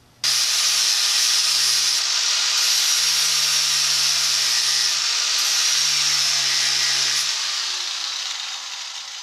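4-inch angle grinder with a sanding flap disc, switched on suddenly and grinding the cut edge of an aluminium bracket smooth with a steady high whine. From about seven seconds in, the pitch falls and the sound fades as the grinder winds down.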